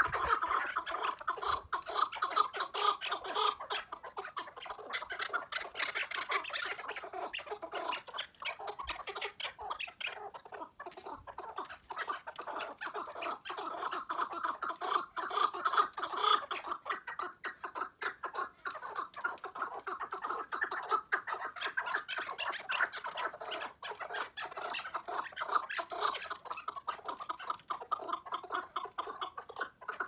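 Chukar partridge calling: a continuous run of rapid clucking chuk notes that swells and fades in loudness.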